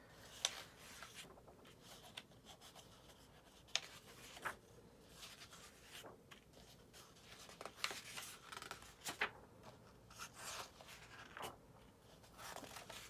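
Book pages being turned and handled: faint paper swishes and rustles with a few soft page snaps.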